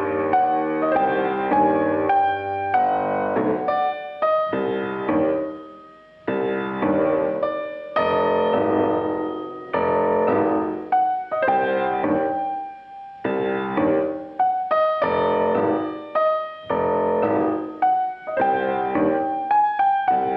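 Solo grand piano played live: struck chords under a melody line, with the playing easing off briefly around six seconds in before picking up again.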